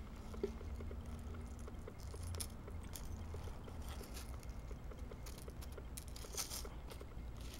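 Faint handling noises: tissue paper and cellophane packaging rustling, with scattered small clicks and clinks of metal charms and rhinestones being set down, over a low steady hum.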